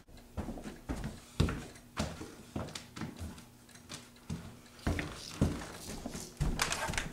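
A series of irregular soft knocks and thumps, a few a second, with the loudest about a second and a half in and again past the middle.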